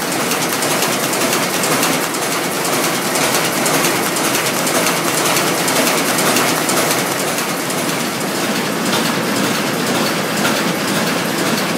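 Grutzmacher envelope inserting machine running steadily, a dense continuous mechanical clatter of rapid fine clicks.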